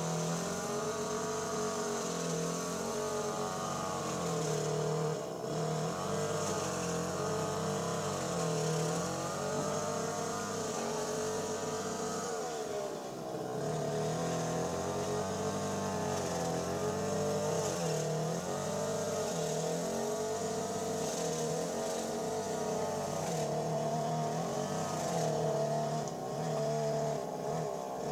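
An engine running continuously, its pitch slowly rising and falling every few seconds.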